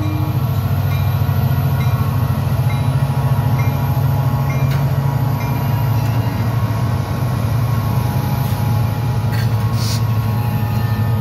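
Union Pacific diesel freight locomotives rumbling steadily past at close range, the horn's last note cutting off right at the start. A grade-crossing bell dings repeatedly over the engine noise, and the freight cars start rolling by near the end.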